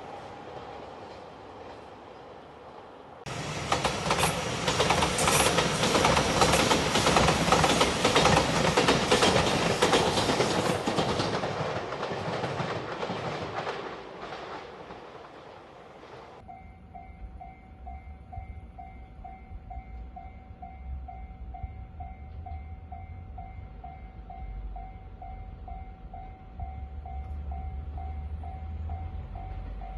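A train running past a level crossing at speed, a loud rushing noise of wheels on rail that starts abruptly and dies away after several seconds. After it, a Japanese level crossing warning bell clangs over and over at a steady beat.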